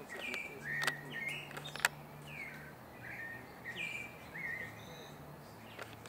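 Birds chirping: short downslurred notes repeated every half second or so, with two sharp taps about a second apart near the start.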